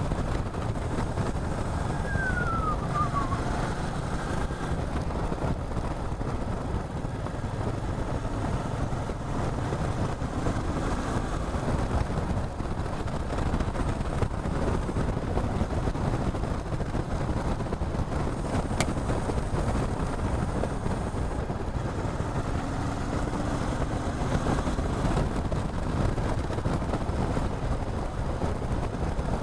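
Motorcycle riding at speed: a steady rush of wind on an action camera's microphone over the running engine. A short falling whine sounds about two seconds in.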